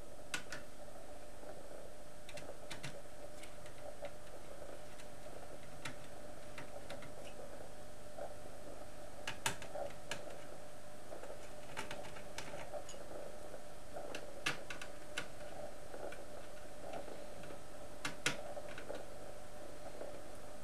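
Screwdriver backing out small screws from an LCD monitor's power board on its sheet-metal chassis: scattered light metallic clicks and ticks, a dozen or so at irregular intervals, over a steady background hiss and hum.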